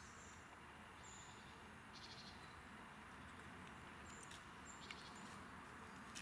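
Near silence: a faint steady hiss with a few brief, faint high chirps and a sharp click near the end.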